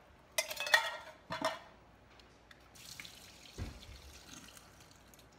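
Canned mandarin orange segments and their juice splash and slide out of a tin can into a plastic bowl of fruit, with a knife scraping at the can's rim to push them loose. There are two splashes, the louder one about half a second in and a shorter one about a second later, then a dull thump about three and a half seconds in as the empty can is set down on the stone counter.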